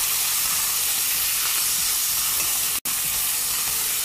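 Prawns sizzling in hot oil in a very hot pan: a steady frying hiss. It cuts out for an instant about three seconds in.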